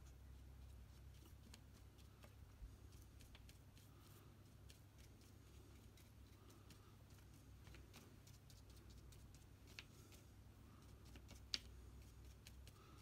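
Near silence: faint, scattered light taps of a paintbrush dabbing dots of paint onto paper, over a low steady room hum, with one sharper click near the end.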